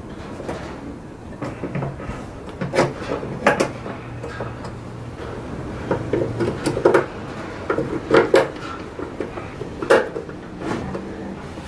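Hand screwdriver work fitting a metal folding lid stay to a wooden toy box: irregular clicks and knocks of metal on wood as the screws are turned and the stay is handled.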